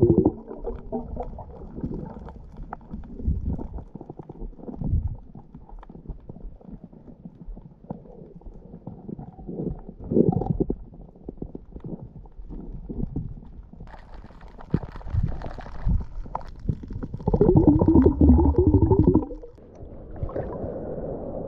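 Muffled underwater rumbling and gurgling picked up by a camera in its waterproof housing during a free dive, with louder bubbling bursts about ten seconds in and again for a couple of seconds near the end.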